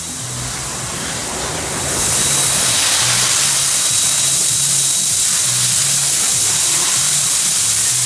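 A loud steady hiss of water rushing down a water slide, swelling about two seconds in, with background music carrying a repeating bass line underneath.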